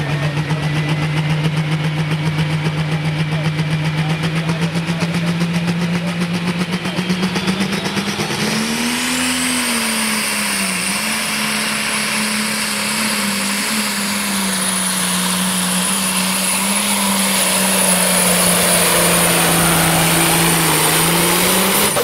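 Case IH diesel pulling tractor engine running at a pulsing, lumpy fast idle at the start line. About eight seconds in it revs up sharply as the tractor launches, and a high whistle climbs in with it. It then holds at high revs under load while pulling the sled.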